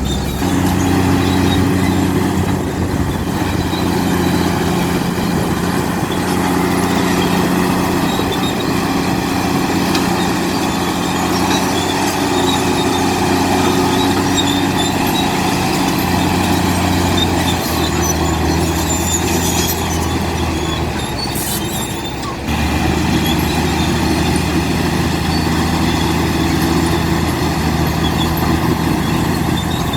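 Komatsu D65P crawler bulldozer's diesel engine running steadily under load while pushing stone. Its note drops a little about two-thirds of the way through, dips briefly, then picks back up.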